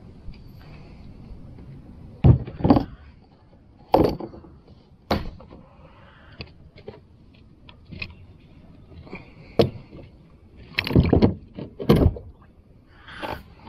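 Irregular knocks and thumps on a fishing kayak, as gear or the paddle bumps the hull, coming at uneven intervals over a low hiss. The loudest come about two seconds in and again near the end.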